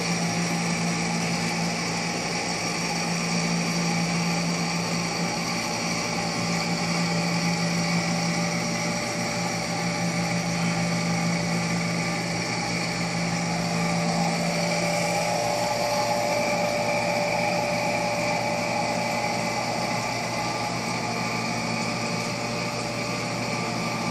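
Steady mechanical hum of reef aquarium pumps and equipment, made of several steady tones. A low hum fades out about fifteen seconds in, while a higher tone grows stronger.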